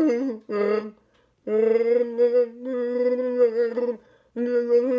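Chewbacca-style Wookiee calls: a string of pitched, wavering vocal growls. Short calls come first, then a near-silent break about a second in, then one long call of about two and a half seconds, and another begins near the end.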